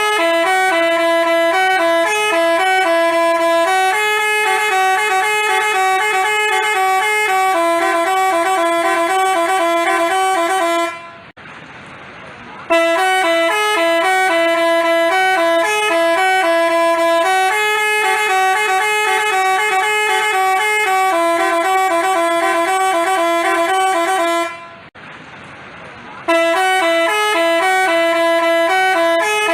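Telolet bus horn, the Basuri multi-tone kind, playing a tune of rapid stepping notes. The same phrase of about eleven seconds plays, breaks off for about a second and a half, and starts over, twice.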